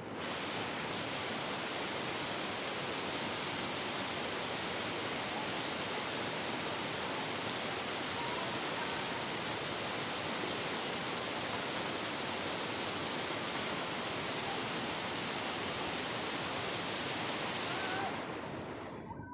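Rushing white water of a shallow, rocky river rapid, a loud steady hiss with no rhythm. It starts abruptly and fades out near the end.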